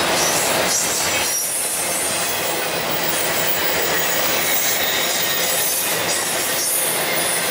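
Double-stack intermodal freight train's well cars rolling past close by: steady noise of steel wheels on rail, with a thin, high wheel squeal running under it.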